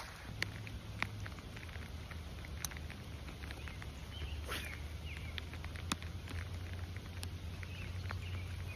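Rain falling, with raindrops landing close to the microphone as irregular sharp ticks, over a low steady rumble.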